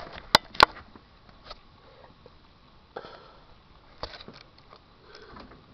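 Two sharp clicks close together near the start, then soft scattered rustling and sniffing close to the microphone as a cat plays with shoelaces.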